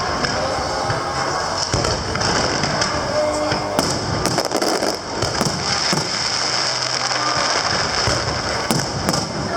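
Aerial fireworks going off in quick succession: a dense continuous crackle with several sharper bangs scattered through, mixed with music.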